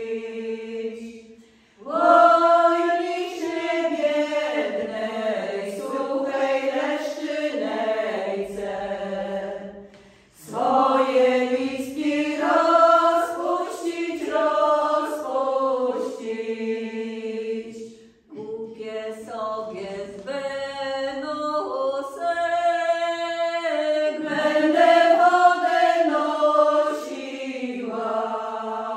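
Women's folk vocal ensemble singing an old Polish folk song a cappella in close harmony, in long held phrases with a short break for breath about every eight seconds.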